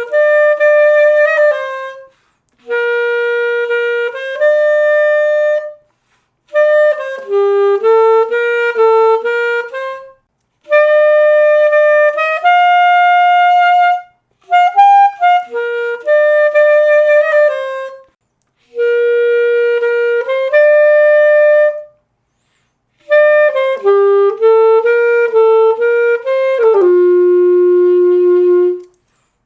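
Selmer Paris Series III alto saxophone played solo and dry, with no effects, in a run of short melodic phrases of single notes broken by brief pauses for breath. The last phrase drops to a long held low note near the end.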